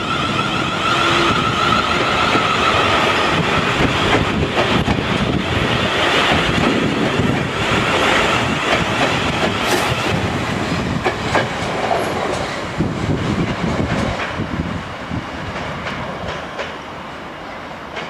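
South Western Railway Class 701 electric multiple unit passing close by, its wheels clicking over rail joints, with a high whine in the first few seconds. The sound dies away over the last few seconds as the train moves off.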